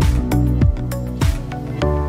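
Background music: an electronic track with a steady beat of deep kick-drum hits about every 0.6 seconds under sustained chords, a new held chord coming in near the end.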